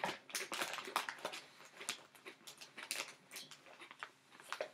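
Jigsaw puzzle pieces being handled and tried against each other: a run of irregular small clicks and taps.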